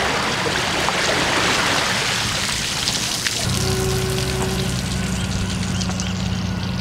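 Water streaming and splashing off an empty boat trailer as it is towed out of the water up a launch ramp. About three and a half seconds in, a steady low hum sets in under it.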